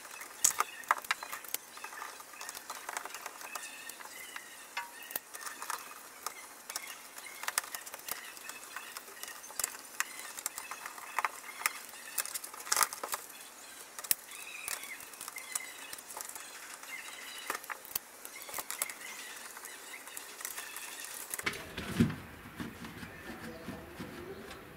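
Irregular sharp plastic clicks and taps from a computer keyboard being handled and taken apart, with faint bird chirps behind.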